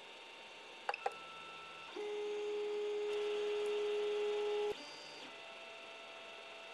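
Stepper motors of a Creality CR-10S printer moving the printhead to the next bed-levelling point. A couple of clicks come about a second in, then a brief higher whine, then a louder whine held at one pitch for nearly three seconds that stops abruptly.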